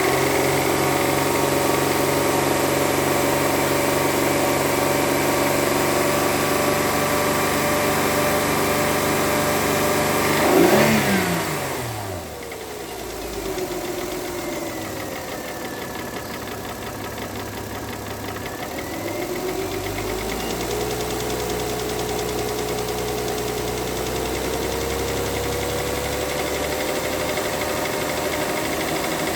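Mercedes-Benz W211's 3.5-litre V6 engine running with a knock. About a third of the way in it briefly gets louder, then its speed falls away; later it picks up again with a slowly rising pitch.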